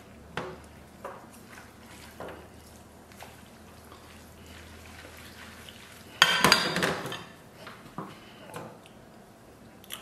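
Chopsticks clinking and scraping against a stainless steel pot while noodles are stirred. A few scattered light taps, then a louder run of clattering about six seconds in that lasts about a second.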